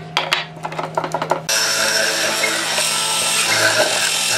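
Benchtop hollow-chisel mortiser with its motor humming while the wooden workpiece is knocked about into position, then about one and a half seconds in the auger and square chisel plunge into the wood and cut with a much louder, steady noise.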